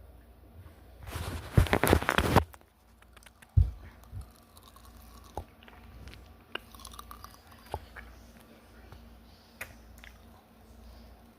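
A person chewing and crunching a fizzy candy close to the microphone, with a loud crackling crunch for about a second starting a second in, then a low thump and scattered small mouth clicks.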